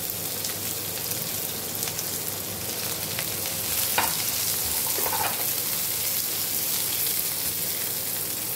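Sliced onions sizzling in hot oil in a non-stick kadai, stirred with a wooden spatula, with a few scrapes of the spatula against the pan about four and five seconds in.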